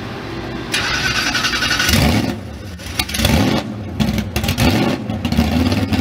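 Ford Mustang drag car's engine being started: it catches about two seconds in, is revved in several quick blips, and settles into a choppy, pulsing idle near the end.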